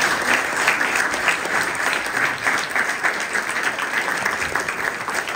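A roomful of people applauding, steady dense clapping throughout.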